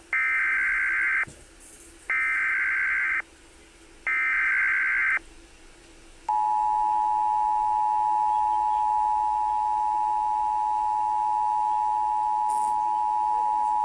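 Emergency Alert System broadcast tones: three short bursts of SAME header data about two seconds apart, then, from about six seconds in, the steady two-tone EAS attention signal.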